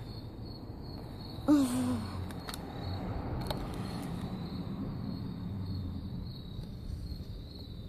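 Insects trilling steadily in the background with a high, even tone. About a second and a half in there is a short, falling vocal sound from a child, followed by a few faint clicks and handling rumble.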